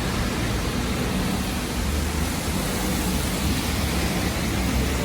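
Steady rushing outdoor noise with a low rumble underneath, unchanging throughout.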